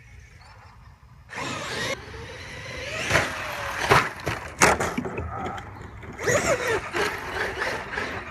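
Traxxas XMaxx electric RC monster truck running: from about a second in its motor whines, rising and falling with the throttle, over loud tyre noise, with a few sharp knocks through the middle.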